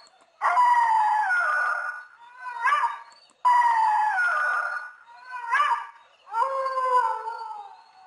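Canine howling: three long, drawn-out wails that slide down in pitch, each followed by a short rising yelp.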